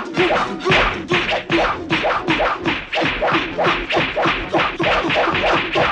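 A rapid, even series of hand slaps landing, about four a second, with no break.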